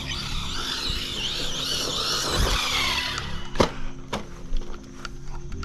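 Whine of an RC monster truck's brushless motor and drivetrain, wavering up and down in pitch with the throttle, then dying away about three seconds in. This fits the Hobbywing Max10 ESC cutting out again, which it has been doing as it gets hot. Two sharp knocks follow shortly after.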